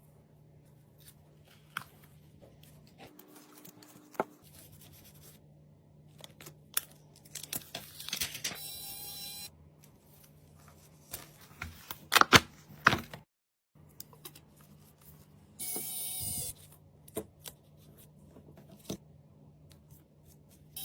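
Phone repair handling sounds: scattered clicks and taps of small tools and parts, with tearing sounds like adhesive being peeled, and two short noisy bursts of about a second each, over a faint steady hum.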